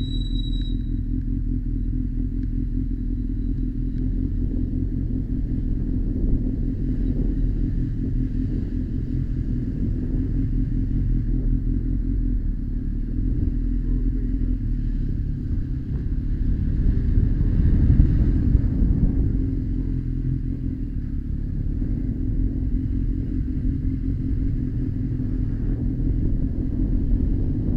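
Honda X4's 1284 cc inline-four engine running under way at low street speed, a steady low rumble. It grows louder for a couple of seconds about two-thirds of the way through as the bike pulls up a street.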